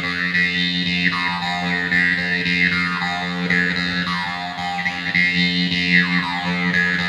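Mouth harp (jaw harp) being played: a steady buzzing drone with bright overtones that sweep downward again and again as the player shapes his mouth.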